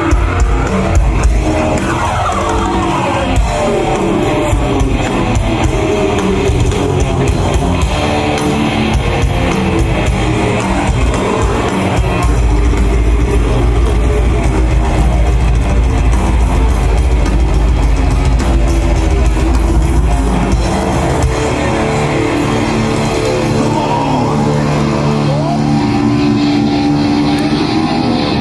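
Live heavy metal band playing loudly through a PA: guitars and a drum kit, with a stretch of heavy, sustained bass through the middle.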